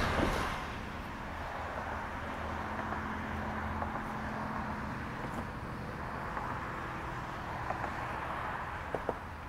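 Roadside traffic ambience: a car passes near the start, then a steady hum of traffic, with a few light clicks near the end.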